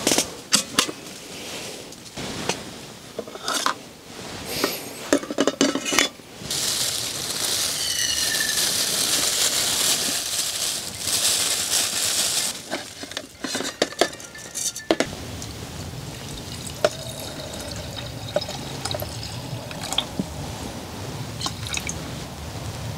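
A small electric rice cooker and its metal inner pot being handled, with sharp clicks and clinks of lid and pot. From about six to twelve seconds in comes a steady pour into the pot, then more clinks as a stainless steel basket is set inside.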